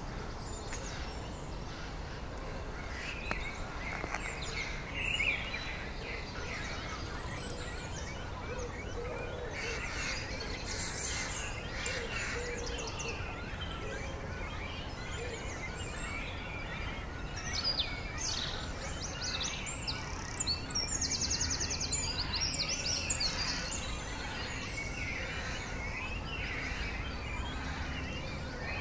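Birds chirping and calling in short, scattered notes, with a fast high trill about two-thirds of the way through, over a steady low outdoor background noise.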